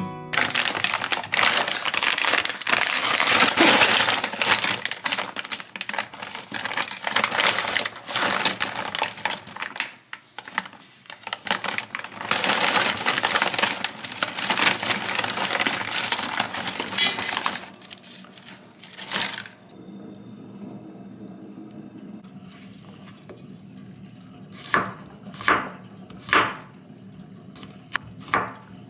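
A plastic food package crinkling and rustling loudly as dried flat glass noodles are pulled out of it. Near the end, a chef's knife slices garlic cloves on a wooden cutting board, with a few sharp chops.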